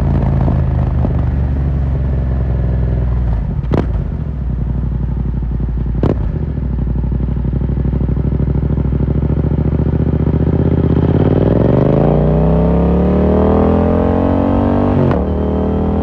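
2018 Yamaha MT-07's 689 cc parallel-twin engine through an Akrapovic carbon full exhaust with the dB killer removed. It runs at low revs with two sharp cracks in the first several seconds, then rises steadily in pitch for about four seconds under acceleration and drops back near the end.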